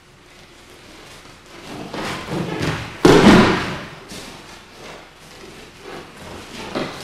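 A body hitting the mat in a breakfall during an aikido throw: one loud thud about three seconds in, after a build-up of scuffing feet and rustling uniforms, with lighter scuffs and rustling afterwards.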